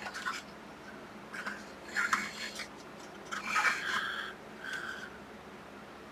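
Small plastic model-kit parts and hobby tools handled on a workbench: light clicks, taps and scrapes in short scattered bursts, the loudest a little past halfway.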